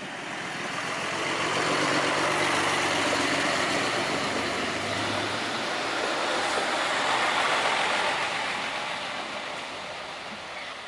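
LHB VT 2E diesel railcar passing close by with its engine running. The sound swells about two seconds in and fades after about eight seconds as the railcar moves away.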